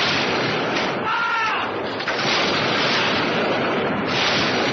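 Radio-drama battle sound effects: a dense, steady roar of noise, with one shouted cry about a second in.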